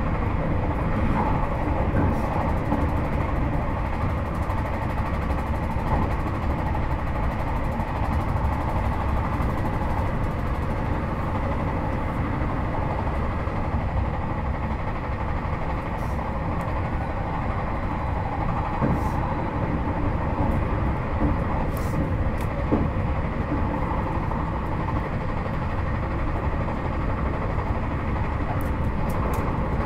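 Running noise inside a JR Hokkaido 721 series 4000-subseries electric motor car with a Toshiba GTO inverter, travelling at speed: a steady rumble of wheels on rail, with a few brief sharp clicks.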